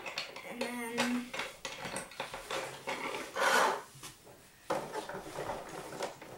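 Hard white plastic parts of a Rapiro robot kit being handled and set down on a wooden table: light clicks and knocks, with a louder rustle about three and a half seconds in.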